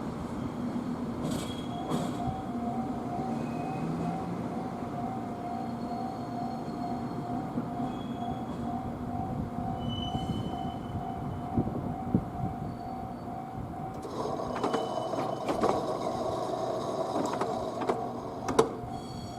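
A Japanese level-crossing warning bell rings in a steady, repeating ding, about two to three strokes a second, starting about two seconds in. Around fourteen seconds in, a JR Kyushu electric train running through the depot grows louder, its wheels giving several sharp clicks on the rails.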